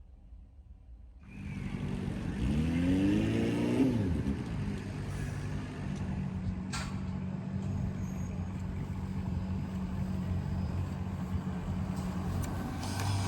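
A vehicle pulling away: a sudden start, a rising motor whine for about a second and a half, then a steady running hum.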